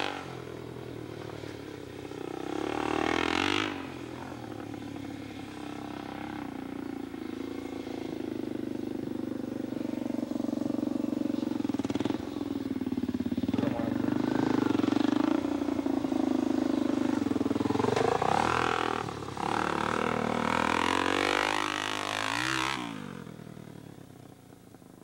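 Dirt bike engine revving and accelerating under hard throttle, its pitch rising and falling with the throttle and gear changes. The sound builds to its loudest in the middle, gives a few sharp revs near the end, then drops away as the bike rides off.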